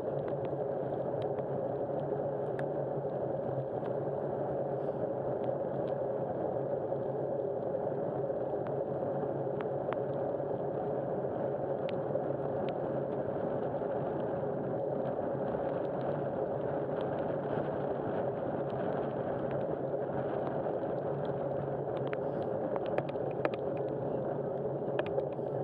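Vehicle engine running steadily: a constant low hum with occasional faint clicks.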